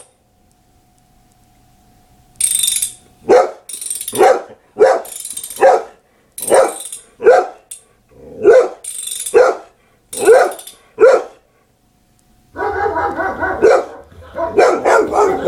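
Boxer dog barking excitedly in a rapid string of short, loud barks, about ten in eight seconds, then a denser run of barking near the end. Bursts of high hissing from the played sound-effects recording fall between the barks.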